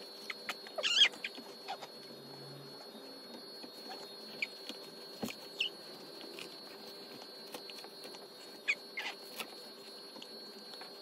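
Disposable diaper being changed: scattered crinkles and rustles of the diaper and its tabs, with a few short squeaks, the loudest about a second in, over a steady faint hum.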